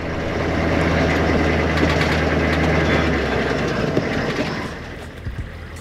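A heavy engine running with a steady low hum under a rumbling noise. The low hum drops away about three and a half seconds in, and the rest fades soon after.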